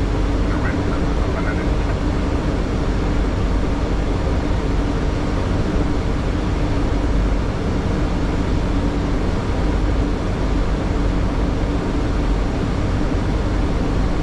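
Steady flight-deck noise of a Boeing 737 on approach: a continuous rush of airflow and engine drone with a low steady hum underneath.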